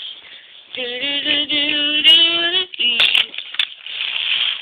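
A child's voice singing a few held notes, the pitch stepping up once, then a hissing noise of about a second and a half.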